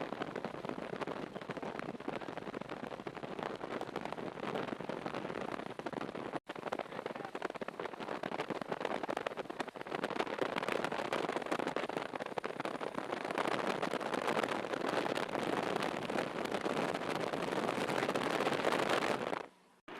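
Heavy rain pattering hard and steadily, a dense hiss of countless small drop hits. It breaks for an instant about six seconds in, grows a little louder in the second half and cuts off just before the end.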